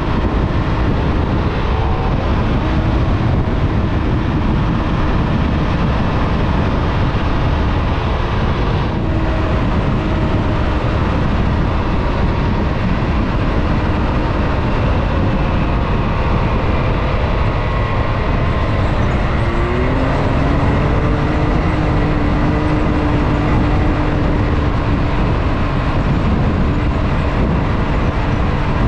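Can-Am Maverick X3 side-by-side UTV being driven, its engine running under steady throttle amid continuous wind and terrain noise. The engine pitch climbs about two-thirds of the way through and then holds.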